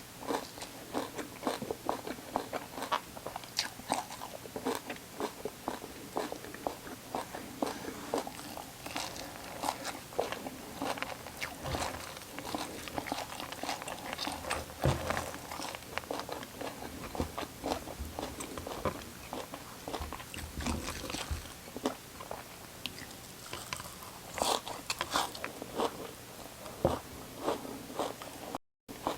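Close-miked crunching bites and chewing of raw vegetables, a dense run of crisp crackles and snaps with a brief break in the sound near the end.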